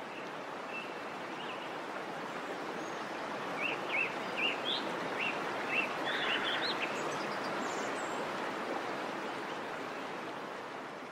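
A small woodland stream babbling over rocks, with a bird singing a run of short chirps for a few seconds midway; the sound fades out near the end.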